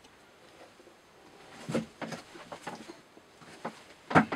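Several light clicks and knocks at irregular intervals, with the loudest near the end, from a knife blade being shifted along on a microscope stage.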